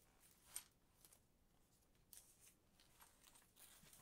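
Faint rustling and crinkling of paper packaging being handled on a coiled pressure-washer hose. There is one sharper rustle about half a second in and a few softer ones later.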